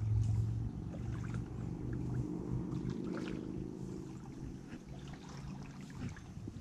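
Shallow creek water trickling over rocks, over a low hum that fades away toward the end.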